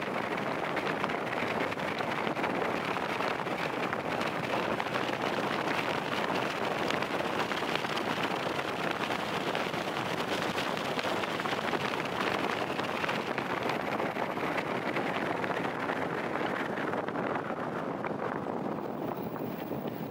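Steady rushing wind and road noise from a vehicle driving along a road, fading a little near the end.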